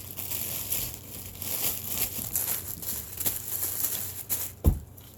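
Plastic bag crinkling and rustling as it is handled, with a single loud thump about four and a half seconds in.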